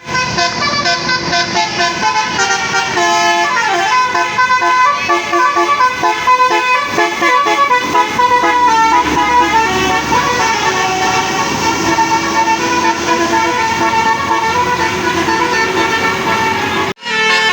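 Tour bus's Basuri telolet horn playing a tune, loud multi-tone notes stepping up and down in pitch, with a sudden short break near the end.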